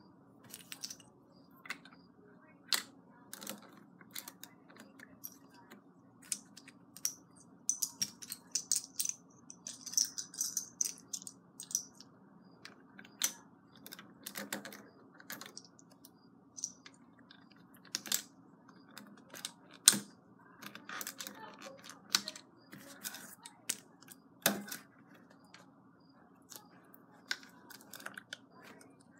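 Plastic LEGO bricks clicking and clattering as hands pick loose bricks from a pile and press them onto a brick wall on a baseplate: irregular sharp clicks, with a denser rattle about eight to eleven seconds in.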